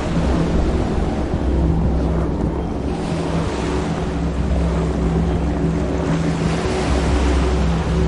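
Steady rushing of water and wind that swells and eases every few seconds, with a low droning hum underneath.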